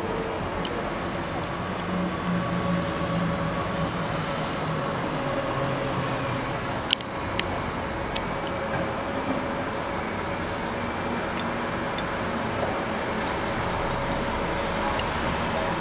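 Steady background of road traffic noise from the surrounding town, with a faint high whistling in the first half and two sharp clicks about seven seconds in.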